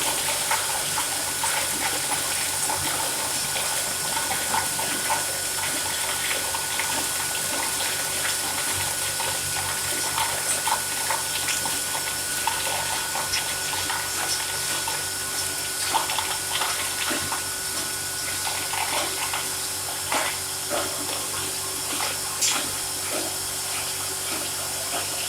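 Tube ice production machine running: a steady rush of flowing water over a constant machine hum, with sharp clicks scattered throughout.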